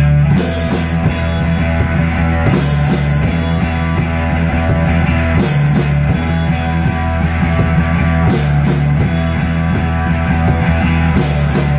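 Rock band playing live: a drum kit with a cymbal crash about every three seconds over a steady bass guitar line, with a guitar in the mix.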